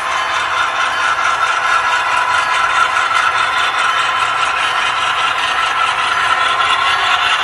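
HO scale model diesel locomotives running slowly along the track: a steady engine-like hum with a light rattle, growing a little louder near the end.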